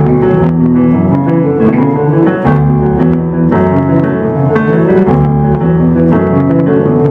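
Live instrumental duo: a hollow-body electric guitar and a keyboard played through a laptop, with low bass notes moving under sustained chords.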